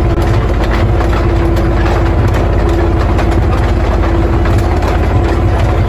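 Heavy tank engine idling: a loud, steady low rumble with a fast, even pulse and a steady hum above it.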